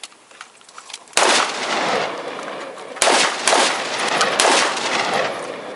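M4-style carbine firing: a loud shot about a second in and another about two seconds later, each followed by a long rolling echo that dies away near the end.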